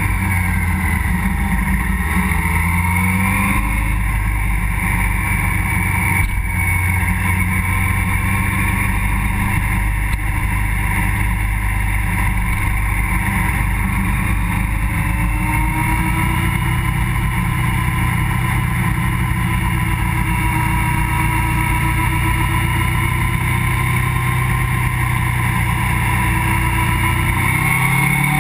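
Motorcycle engine running while riding, heard from a camera mounted on the bike. Its pitch rises and falls as the throttle opens and closes through the bends, climbing again near the end, over constant road noise.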